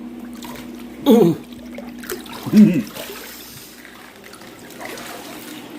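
Water trickling and dripping off a person climbing out of a cold plunge tub, with two short vocal groans that fall in pitch, about a second in and again about two and a half seconds in.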